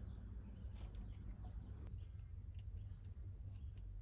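Faint light clicks and small metallic ticks of a screwdriver and loose metal parts being handled at an industrial sewing machine, over a low steady hum.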